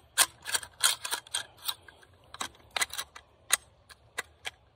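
Sharp metallic clicks and clacks of 12-gauge shells being handled and pushed through the open action into the tube magazine of a Cimarron 1887 lever-action shotgun. The clicks come quickly over the first two seconds, then more sparsely.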